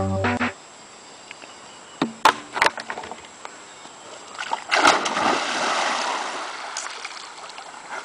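The last notes of an electronic keyboard tune stop half a second in; after a couple of sharp knocks, a person dives into a lake with a loud splash about five seconds in, and the water churns and settles for a couple of seconds after.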